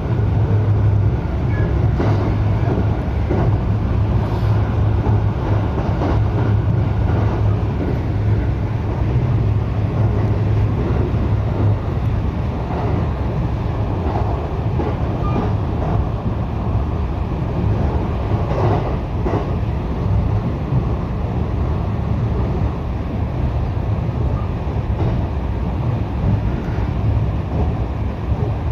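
Running noise of a local electric train in motion, heard from aboard: a steady low rumble of wheels on rail with a few faint knocks.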